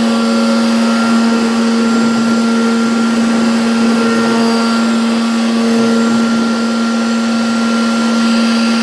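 CNC router spindle running steadily: a constant whine over an even rushing noise.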